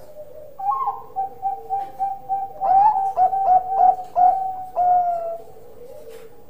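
Zebra dove (a Bangkok-type perkutut) cooing: a quick run of short, clipped coos, the middle ones loudest, ending in one longer drawn-out note about five seconds in.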